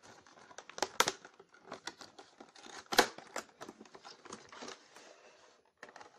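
Cardboard phone box being torn open and handled: crinkling, scraping and sharp snaps of card and paper, the loudest about one second and three seconds in.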